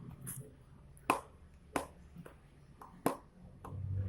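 A few sharp clicks or taps, the loudest about a second in and another near three seconds, from hands handling a foam squishy toy.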